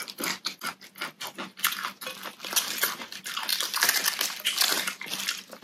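Crisp crackling and crunching of raw vegetables close to the microphone: crunchy raw onion and vegetables being chewed while a raw cabbage leaf is torn apart by hand.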